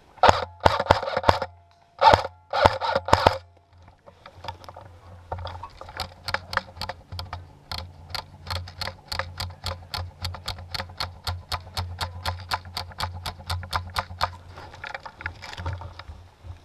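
Airsoft electric gun firing three short full-auto bursts of rapid cracks in the first three and a half seconds. After a pause comes a long run of fainter, evenly spaced clicks, about five a second, for roughly ten seconds.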